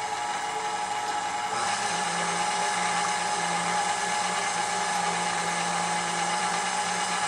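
Electric mixer motor running steadily, whipping juice concentrate while pectin is added, with a constant whirring hum.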